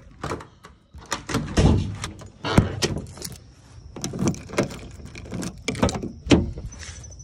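A series of irregular knocks and clicks, a dozen or so, with a faint steady high whine from about halfway through.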